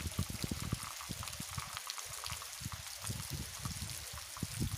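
Wind buffeting the microphone in uneven gusts, over a steady hiss; the gusts ease off in the middle and pick up again near the end.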